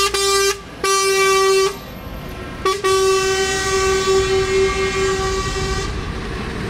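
Lorry air horn sounding three blasts, two short and then one long of about three seconds, over the low rumble of passing lorries.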